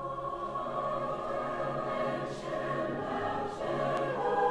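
Background choral music: voices holding long, sustained chords, growing slightly louder.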